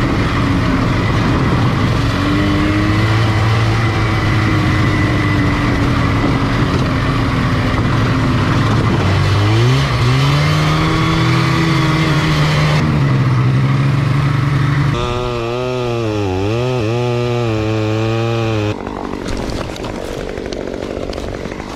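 Yamaha snowmobile's two-stroke engine running under way on a trail, its revs dipping and climbing about ten seconds in and rising and falling repeatedly later. The engine sound breaks off abruptly near the end.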